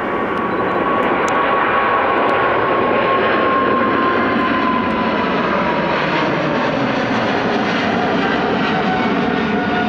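Boeing 777-300ER's two GE90-115B turbofans at take-off power during the climb-out: a dense rush of jet noise that builds over the first second and then holds steady, with a fan whine that slowly falls in pitch.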